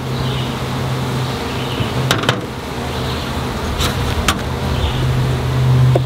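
Hive tool prying a frame loose in a wooden beehive box, with four sharp clicks, two about two seconds in and two a little past the middle. A steady low hum runs underneath, swelling near the end.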